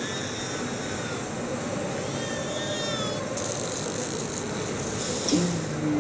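Dense, steady noise texture, a hissing, rustling bed, with faint high chirps that slide downward in pitch. About five seconds in, a few lower tones fall in pitch.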